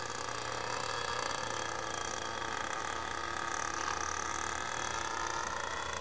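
Radio-control flying-saucer model aircraft in flight, its motor and propeller running steadily with a high whine of several tones that drift slightly in pitch.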